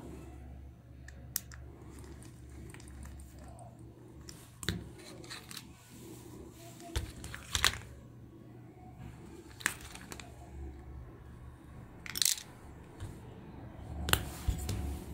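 Irregular clicks, taps and light knocks of small plastic toy parts being handled and fitted together, over a low steady hum.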